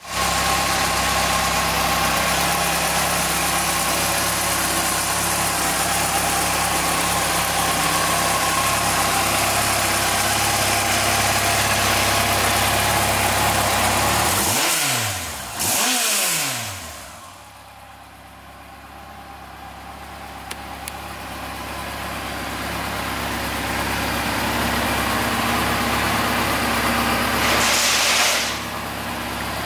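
Yamaha FJR1300's inline-four engine idling steadily. About halfway through the sound briefly swells and dips, then falls to a quieter level that slowly builds back up, with a short rush of noise near the end.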